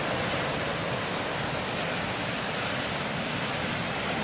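Continuous rush of breaking ocean surf, steady throughout with no single crash standing out.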